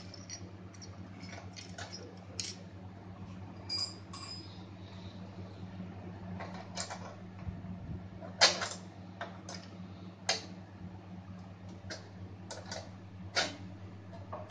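Irregular metallic clicks and clinks of clamps and braided connector straps being fitted by hand onto the heating-rod terminals of an electric gold-melting furnace, the sharpest a little past the middle, over a steady low hum.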